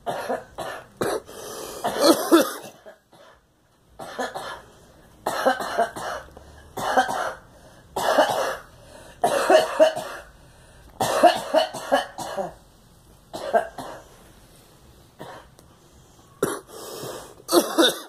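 A woman coughing in repeated fits: about ten bouts of sharp coughs, one after another, with short pauses between them.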